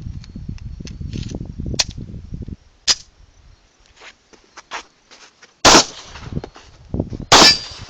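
Two loud 9mm pistol shots from a Browning Hi-Power, about a second and a half apart, coming after some low handling noise and a few fainter sharp clicks.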